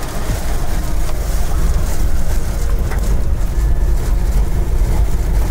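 Strong wind close to a tornado buffeting the vehicle and microphone: a loud, deep, rough rumble that swells during the first second and then holds steady.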